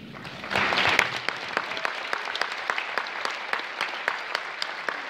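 Audience applauding, rising about half a second in, loudest at the start and then carrying on steadily with single hand claps standing out.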